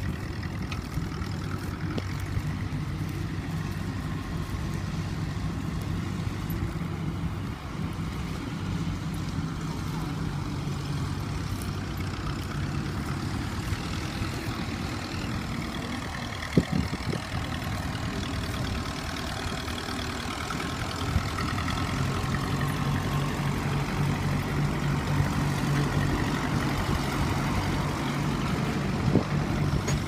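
Tractor engines running steadily while ploughing. The engine note gets louder about two-thirds of the way through as a small grey vintage tractor with a mounted plough works close by. Faint voices of onlookers.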